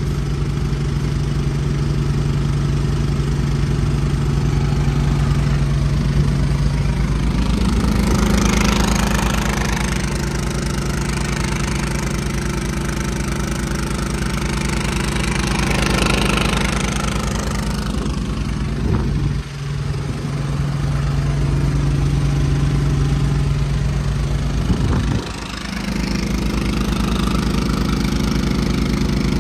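Westinghouse iGen4500 inverter generator running steadily as an APU. Its engine speed steps up and down a few times, changing the pitch of its hum.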